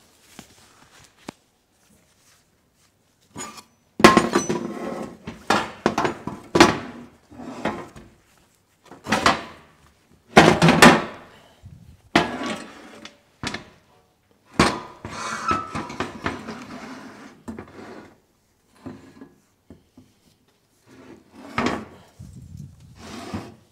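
Irregular metal clanks and knocks, some of them ringing, with short scraping stretches in between, as a steel motorcycle frame and workshop tools are shifted about on a metal workbench and wooden blocks. The sounds start about four seconds in.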